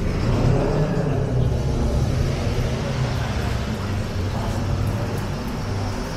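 Low engine rumble of a road vehicle passing close by. It comes in suddenly, holds steady for several seconds, and eases slightly toward the end.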